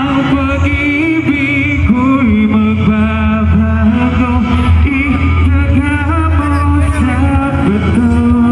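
A male singer singing live into a microphone over amplified music with a strong, steady bass, loud through the PA.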